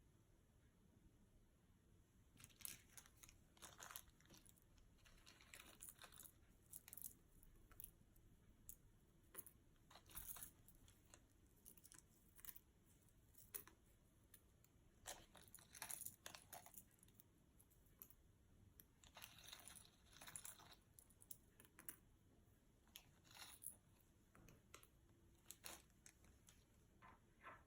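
Fluffy slime being worked by hand, giving faint, irregular crackling and sticky popping sounds in short clusters from about two seconds in.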